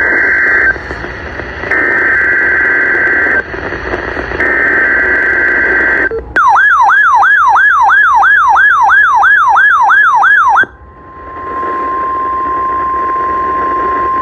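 NOAA Weather Radio weekly test signal. Three short buzzing bursts of SAME digital header data come first. Then comes a warbling siren-like alert tone that swoops up and down about two and a half times a second for roughly four seconds, cutting off into the steady 1050 Hz warning alarm tone.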